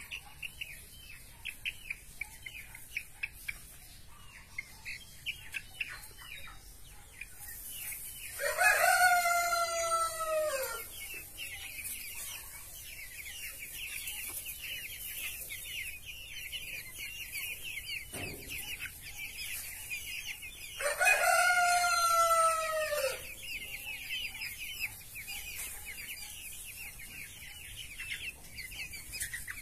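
A flock of young Brahma chicks peeping continuously. A rooster crows twice, about a third of the way in and again about two-thirds through, each crow lasting about two seconds and louder than the peeping.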